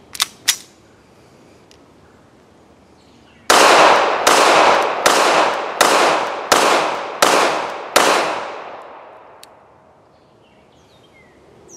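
Beretta 80X Cheetah .380 ACP pistol: two sharp handling clicks right at the start, then a string of about eight shots fired roughly two-thirds of a second apart. The echo of the last shot trails off over the next two seconds.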